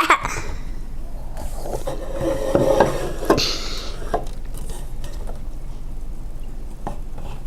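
Soda bottles being handled on a table: knocks and clinks, with a brief hiss a little over three seconds in.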